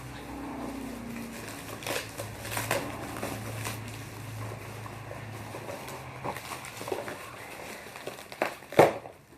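Plastic packaging of carded die-cast toy cars being handled: crinkling and scattered clicks, with one sharper click near the end.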